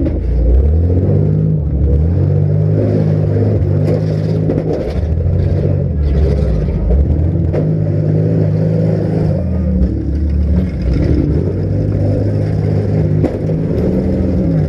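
Several compact-car engines revving and running hard at once, their pitches rising and falling as they accelerate, with a few sharp knocks of metal being hit.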